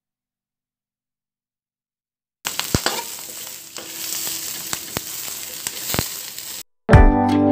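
After about two seconds of silence, red onion frying in a stainless steel wok starts sizzling, with a utensil knocking against the pan several times as it is stirred. The sizzle cuts off near the end and acoustic guitar music begins.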